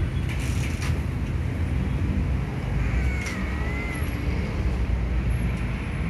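Steady low rumble of road traffic, with one short, high, wavering meow from a tabby cat about three seconds in.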